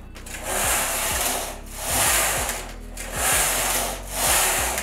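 Carriage of a domestic flatbed knitting machine pushed back and forth across the metal needle bed, about four quick passes, each a rasping swish with a light knock as it turns. It is knitting off rows of waste yarn.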